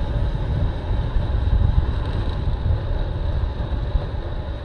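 Wind buffeting the microphone of a camera on a road bike moving at about 33 km/h, a steady rushing rumble.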